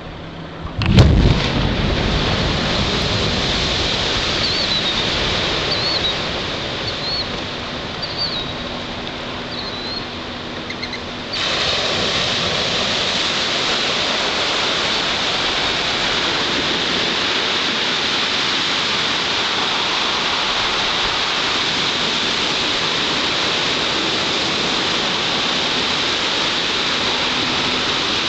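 Explosive charges going off in a drilled concrete bridge pier in a river: one sharp, heavy blast about a second in, as the pier is demolished. A steady rushing noise follows, and it gets abruptly louder about eleven seconds in.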